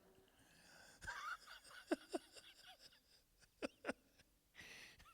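Faint, scattered chuckles and short laughs from a small audience, a few brief ones about a second in, twice around two seconds and twice near four seconds, in a quiet room.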